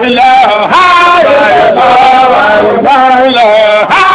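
A male voice singing a Sufi zikr chant, drawing out long held notes that bend and slide in pitch, with a short breath-break near the end.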